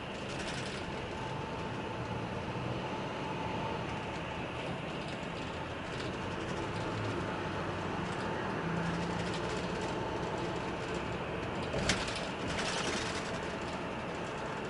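Highway coach cabin noise while under way: a steady drone of engine and road noise. A single sharp knock sounds about twelve seconds in, followed by a brief rattle.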